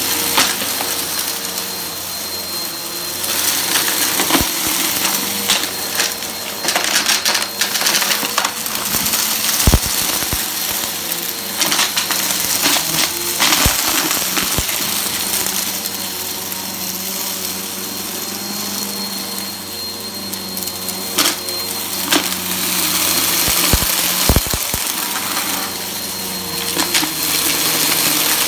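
Bissell upright vacuum cleaner running steadily with a constant motor whine, crackling and clicking sharply many times as crunchy debris is sucked up off the carpet.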